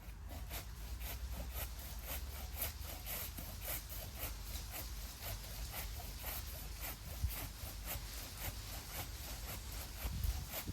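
Hand saw cutting through a cherry tree trunk, in quick even back-and-forth strokes of about three a second.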